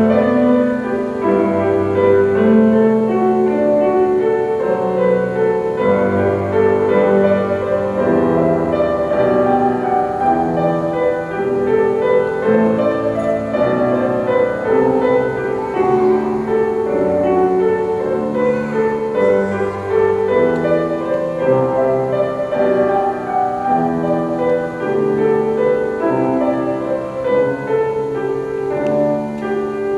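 Instrumental piano music: a slow piece of held chords with a melody above them, easing down slightly near the end.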